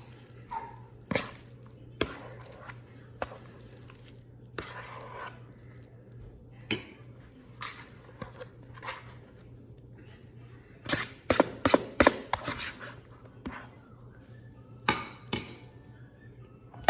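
Metal spoon scraping and knocking against a plastic mixing bowl and a glass baking dish as a thick chicken-and-rice mixture is spooned out, with scattered clinks and a quick run of sharp taps about eleven seconds in.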